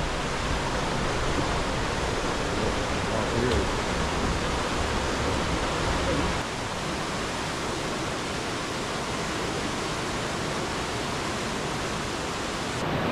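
The Rhine Falls waterfall rushing, a steady dense roar of falling water. The deep rumble drops a little about six seconds in.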